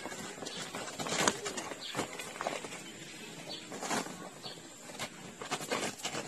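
Two small puppies tussling on a crumpled cloth against a plastic bag: irregular rustling and scuffing with a few sharper scrapes.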